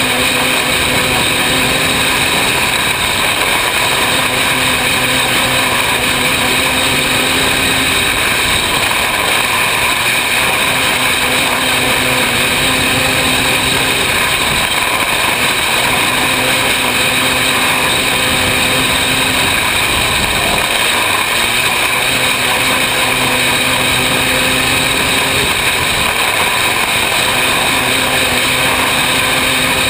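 Open 500cc micro sprint car's engine running at racing speed, heard from the cockpit, with a steady loud rush of wind noise. Its low engine note fades in and out every few seconds.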